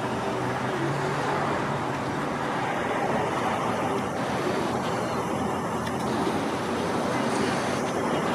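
Steady traffic noise: an even rush of road vehicles with no single event standing out.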